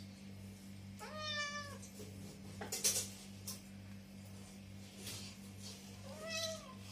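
A domestic cat meows twice, a drawn-out meow about a second in and a shorter one near the end. A sharp knock between them is the loudest sound, over a steady low hum.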